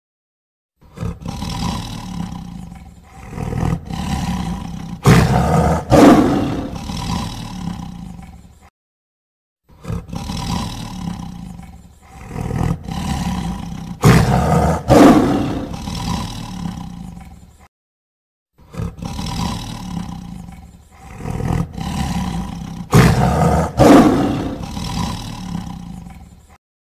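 Tiger roaring. The same roughly eight-second roar recording plays three times with a short break between, and each time it builds to two loud roars about halfway through.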